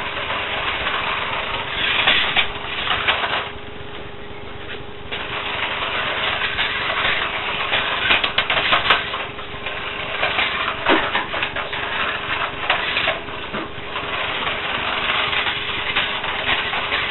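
Small radio-controlled car's motor running, a continuous mechanical whirr with a steady hum that swells and dips, quieter for a moment about three and a half seconds in, with scattered light clicks.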